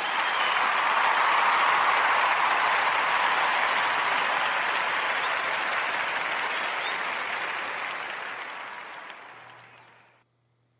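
Crowd applauding, a dense clapping that swells to its peak about two seconds in, then fades slowly and cuts off abruptly near the end.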